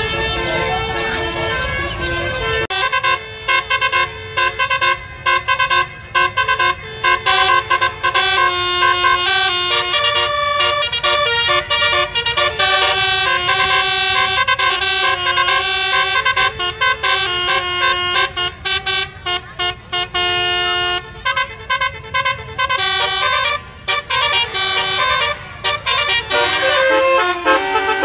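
Basuri musical horns on tour buses playing melodies: pitched notes that step up and down and cut on and off rapidly, starting a couple of seconds in after a low rumble.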